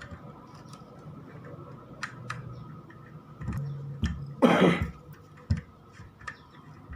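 Scattered clicks and knocks of ring light parts being handled and fitted onto a tripod stand, with a brief louder noise about four and a half seconds in.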